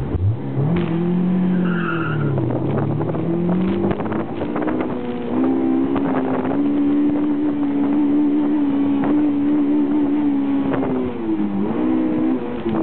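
Car engine driven hard through an autocross course: the revs climb in the first seconds, sag briefly, then rise again and hold high for several seconds, dropping once near the end before picking up.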